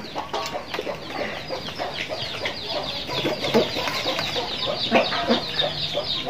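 Chickens clucking, with a rapid run of short, high calls throughout and a few light knocks.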